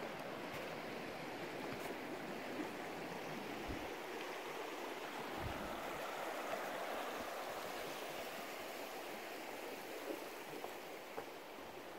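Steady rushing of flowing water from a stream.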